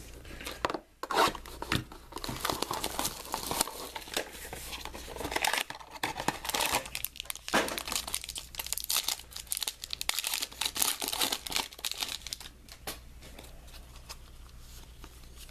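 A trading card pack's wrapper being torn open and crinkled in the hands, a dense run of tearing and crackling. It dies down near the end.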